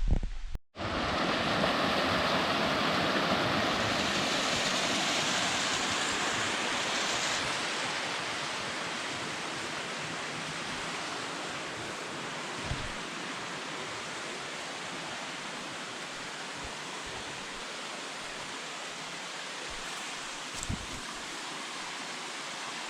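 Waterfall: a steady rush of falling water, a little louder for the first several seconds and then easing slightly.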